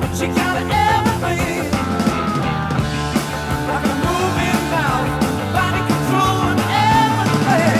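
Rock music with a singing voice, playing steadily.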